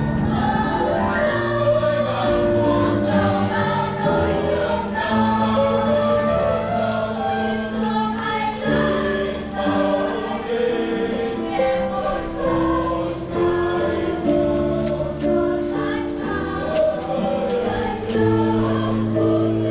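Church choir singing a hymn, with long held bass notes sustained underneath.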